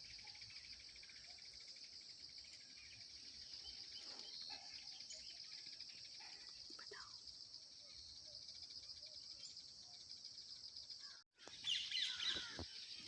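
Faint, steady high-pitched chirring of insects with a fast even pulse, with a few bird chirps over it; the chirps grow louder after a brief break near the end.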